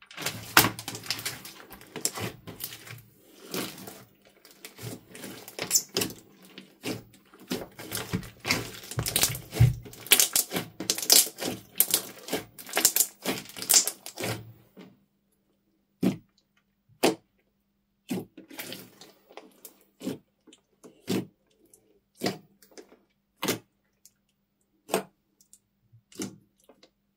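Slime being pressed and squeezed by hand, giving a dense run of crackling clicks and pops from trapped air for about fifteen seconds, then single sharp pops about once a second.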